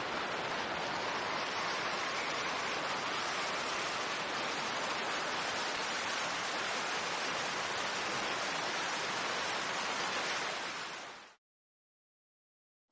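Steady rush of wind over the built-in microphone of an Insta360 One X action camera carried on a bicycle at high speed. It fades out about eleven seconds in, leaving dead silence.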